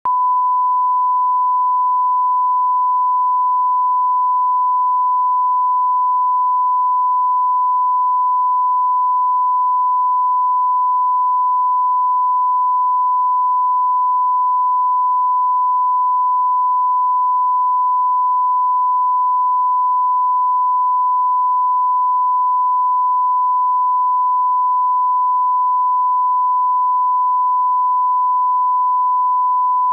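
1 kHz reference test tone that accompanies broadcast colour bars: one pure, steady beep at an unchanging pitch and level.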